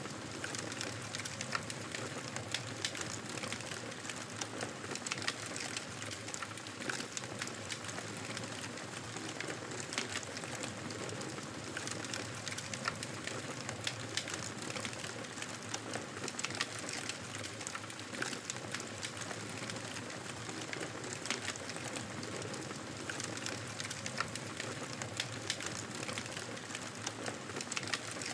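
Campfire burning: a steady hiss of flames with frequent sharp crackles and pops from the burning wood.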